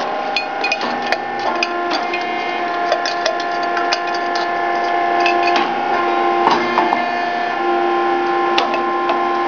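Rice cake popping machine at work: a steady mechanical hum that breaks off and restarts every second or two, with scattered clicks and knocks from the moulds and a louder knock about six and a half seconds in.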